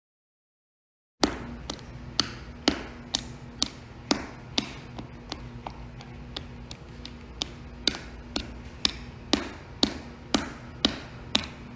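Sharp taps in an even rhythm, about two a second, each with a short ring, over a low steady hum; they start suddenly about a second in, after silence.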